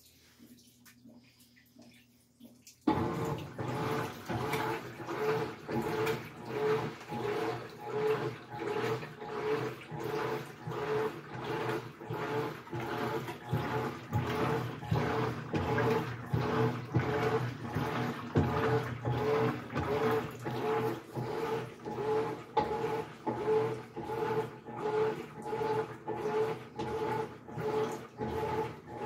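Top-load washing machine starting to agitate about three seconds in: its motor hums in an even rhythm of about one and a half strokes a second, with water sounds underneath.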